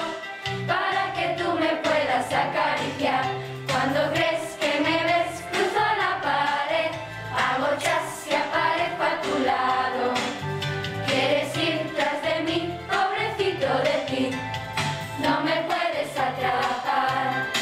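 A song with singing voices over instrumental accompaniment.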